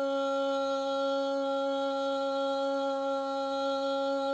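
A man's voice holding one long sung note at a steady pitch, unaccompanied, stretched out between two words of a slow Arabic poem.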